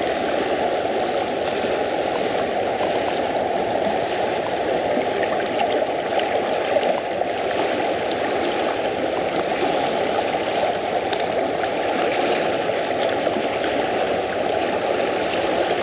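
Fast river current rushing and gurgling close by, a steady even rush of water.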